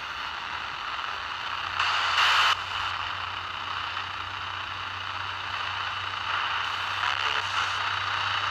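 Radio static from a Panabox spirit box, steady hiss with a louder burst about two seconds in and a low hum underneath; it is a lot of interference, which the investigators put down to the metal roof.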